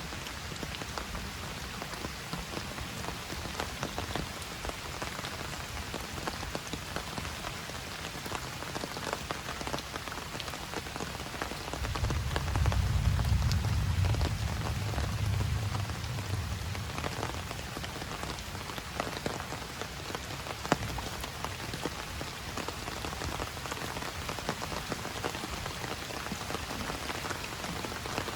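Steady rain falling, with many separate drop hits heard through it. A low rumble swells for about five seconds near the middle and is the loudest sound.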